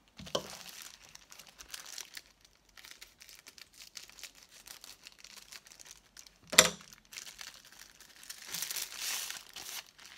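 Plastic packaging of a diamond-painting kit crinkling as it is cut open with small scissors and handled. About two-thirds of the way through there is a single sharp knock as the scissors are set down on the table, and louder rustling follows near the end as the rolled canvas is pulled out.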